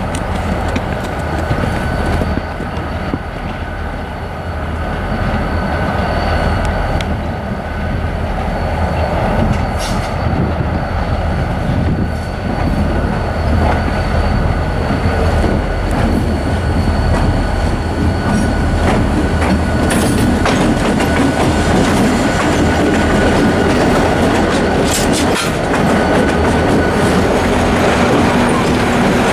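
Reading and Northern GP39RN diesel locomotives hauling a passenger train draw closer and pass by. The engines run with a steady low rumble, growing louder as the train nears. The wheels click over rail joints and switches and squeal faintly as the coaches roll past.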